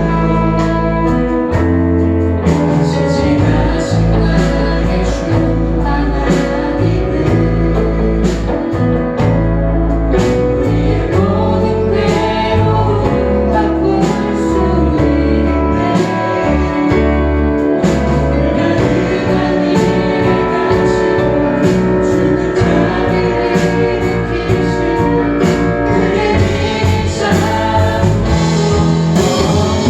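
Church praise team performing a worship song: several voices singing together over a band with a steady drum beat.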